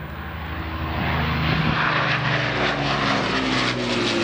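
The twin Rolls-Royce Merlin V12 piston engines of a de Havilland Mosquito on a low pass, growing louder over the first second or so as the aircraft closes in, then staying loud and steady as it passes near.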